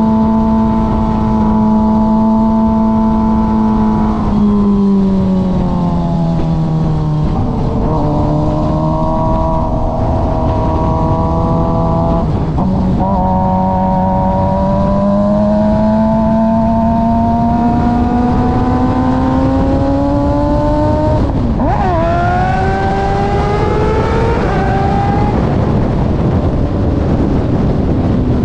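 Sport motorcycle engine under way, heard from on board: a steady pitch that eases off about four seconds in, then climbs for a long stretch, dips sharply for a moment about three quarters of the way through and climbs again. Heavy wind rush on the microphone runs underneath.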